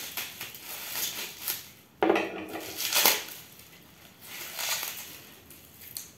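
A knife scraping and slicing through the plastic shrink-wrap on a metal aerosol can, with sharp clattering knocks about two and three seconds in. The loosened film then crinkles as it is peeled off by hand.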